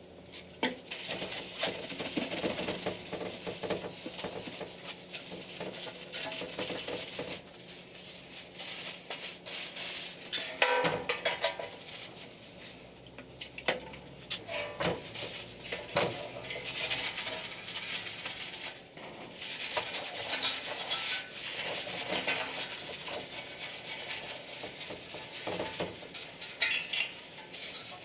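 Hand rubbing and scraping on the steel body of an old jerry can, in uneven strokes, with a few clanks of metal.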